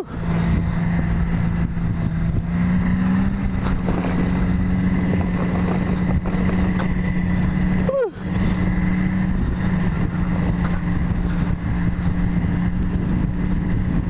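Snowmobile engine running steadily at speed, pitch rising slightly about three seconds in, heard from the towed sled with wind rushing over the microphone. The sound cuts out briefly about eight seconds in.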